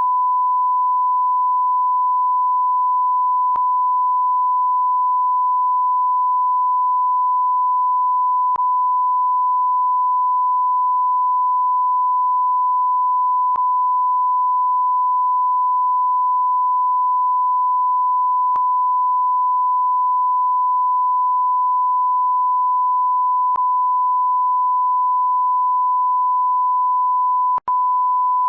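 Censor bleep: one pure, steady electronic tone, held unbroken except for a momentary dropout near the end.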